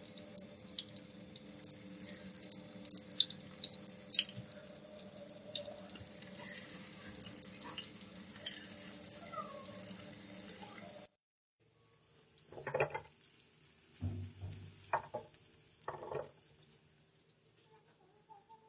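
Beef seekh kababs frying in hot oil in a nonstick wok: a steady crackling sizzle with many tiny pops. About eleven seconds in the sound cuts out, then a quieter sizzle goes on with a few brief soft knocks.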